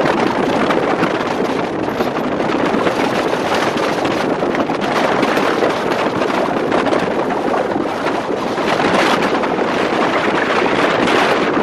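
Steady wind rush on the microphone of a camera held at the window of a moving car, mixed with the car's road noise.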